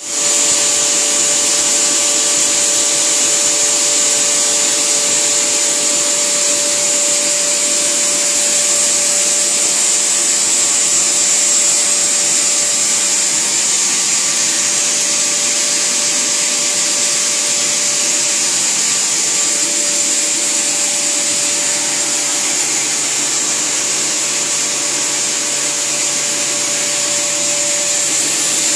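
Stone-cutting saw running steadily as it cuts a block of black fossilized marble: a loud, constant machine noise with a steady hum and a high hiss.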